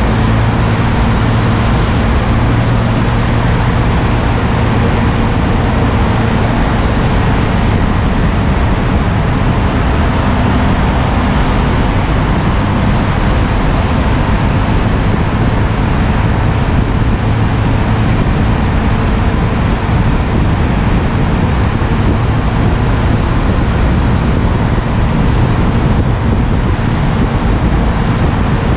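KTM Duke 125's single-cylinder engine running steadily at cruising speed, buried in heavy wind rush on the unshielded microphone. Surrounding car traffic echoes in a road tunnel.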